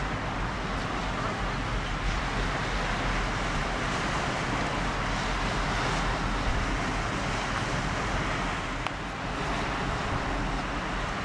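Wind buffeting the microphone with a steady low rumble, over a constant hiss of wind and choppy river water. The level dips briefly about nine seconds in.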